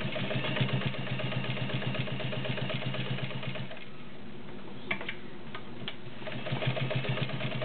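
Dressmaker Model 90 all-metal zigzag sewing machine running, its motor humming with a fast ticking of the needle stroke as it stitches through a couple of layers of leather. It stops about three and a half seconds in, two clicks follow, and it starts sewing again about two and a half seconds later.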